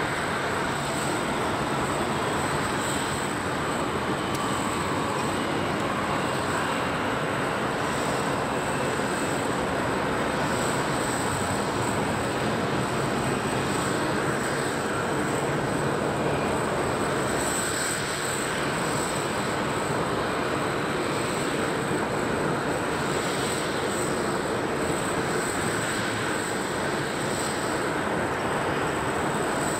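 Steady airport apron noise: an even rumble of jet and ground-equipment machinery with a constant thin high whine over it.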